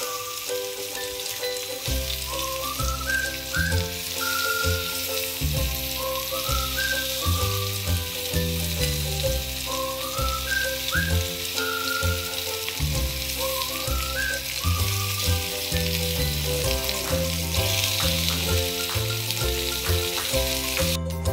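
Marinated chicken skewers sizzling on a hot, oiled griddle pan, a steady hiss. Background music plays over it, with a bass line coming in about two seconds in.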